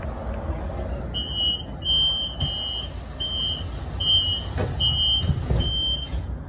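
Interior of a Solaris Urbino 18 electric articulated bus: a steady low rumble from the bus, with a run of about seven short, high, evenly spaced warning beeps, roughly one and a half a second, from about a second in to near the end. Two soft knocks come in the second half.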